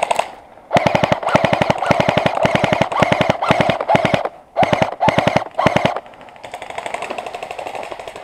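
Airsoft guns firing on full-auto in rapid bursts: one long burst of about three seconds, two short bursts, then a fainter, longer burst near the end.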